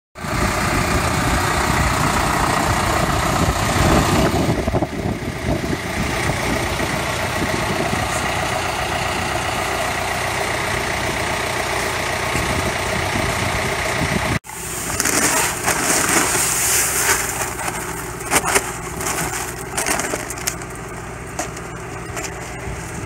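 A Case IH JXU 105 tractor's diesel engine runs steadily, pulling a Gaspardo pneumatic seed drill. After a cut about two-thirds through, the engine is heard with gusts of wind buffeting the microphone as the drill sows.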